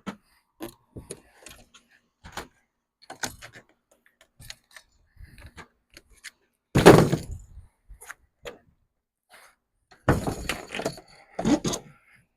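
Nailed wooden shipping crate being taken apart by hand: a string of wood knocks and cracks, with one loud crash about seven seconds in and a quick cluster of knocks near the end.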